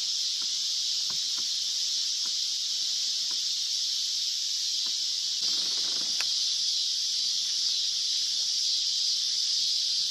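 Steady, high-pitched chorus of night-singing insects, with a few faint ticks beneath it.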